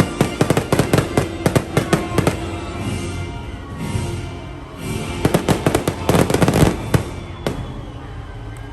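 Fireworks going off in two rapid flurries of sharp bangs and crackles, the first at the start and the second about five seconds in, with music playing underneath.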